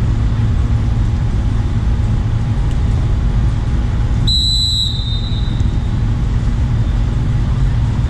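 A referee's whistle blown once about four seconds in, a short high blast that fades quickly, which stops play, over a steady low rumble.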